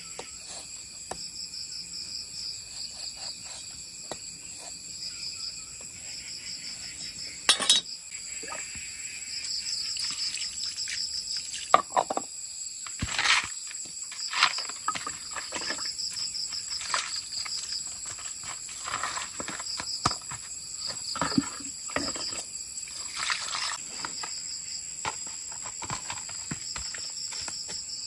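Insects chirping in a steady, high, pulsing trill, with scattered knocks, scrapes and rustles throughout; the sharpest knocks come about seven seconds in and again around twelve seconds.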